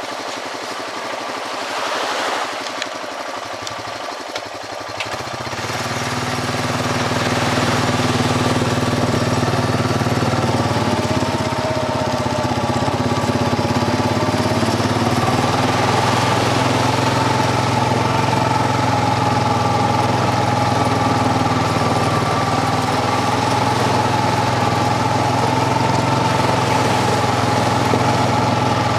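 ATV engine running; about five seconds in it picks up revs as the machine gets going and grows louder, then holds a steady cruising drone whose pitch wavers slightly with the throttle.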